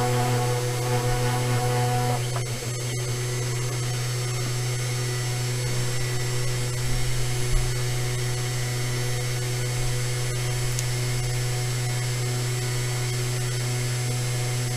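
Sainsmart Genmitsu 4040 Pro CNC router's 52 mm spindle running with a steady hum as the bit cuts a half-millimetre-deep spiral groove into an oak blank turning on the rotary axis. A set of higher machine tones stops about two seconds in.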